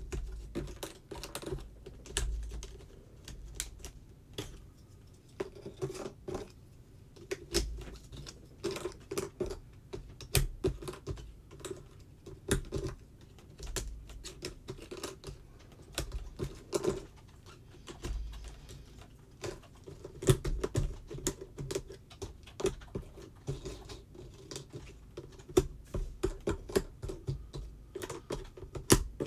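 Jigsaw puzzle pieces clicking and tapping against the tabletop and each other as they are picked up, sorted and pressed into place, in quick irregular clicks with soft bumps of hands on the table.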